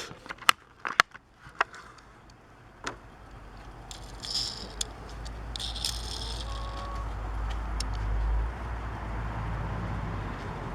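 A Hot Wheels blister pack being opened by hand: sharp clicks and cracks of the plastic blister and card in the first few seconds, then two short bursts of crinkling about four and six seconds in. A low rumble builds underneath through the second half.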